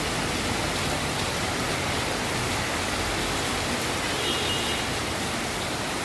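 Steady hiss of heavy rain beside a city road, mixed with the wash of traffic on the wet road. A faint brief high tone sounds about four seconds in.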